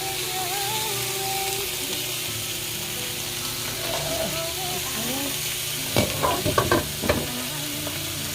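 Chicken frying in an oiled pan with a steady sizzle while being stirred, with a few sharp clattering strokes about six to seven seconds in.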